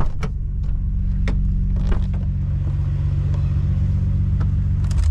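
Nissan Skyline R34 GT-R's twin-turbo straight-six heard from inside the cabin while driving: a steady low engine drone mixed with road noise, with a few faint clicks.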